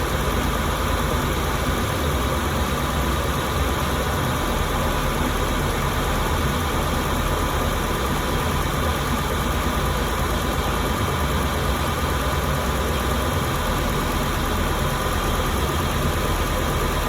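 International 7.3 V8 diesel engine idling steadily while it warms up.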